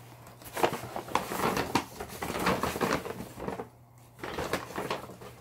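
Rustling and clattering of hands rummaging through a bag of yarn and craft things, with a short lull a little before four seconds in.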